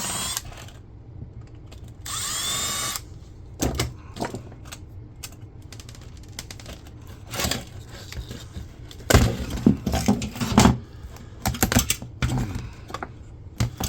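A power drill-driver running in short bursts as it backs out the monitor's screws: one brief run at the start and a longer one about two seconds in, its whine changing pitch. After that come scattered clicks and clatter of screws and metal and plastic parts being handled.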